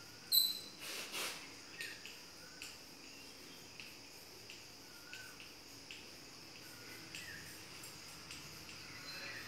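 Chalk writing on a blackboard: light taps and scratches of the chalk at irregular short intervals, with a few short high chirps.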